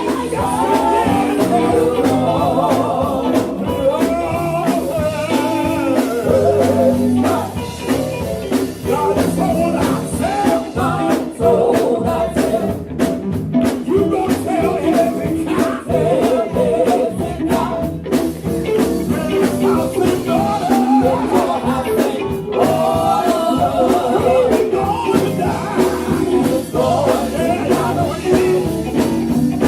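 Gospel music with singing, guitar and a steady beat.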